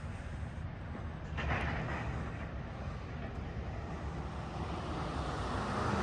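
Steady low engine rumble of heavy machinery running, with a short louder rushing noise about one and a half seconds in.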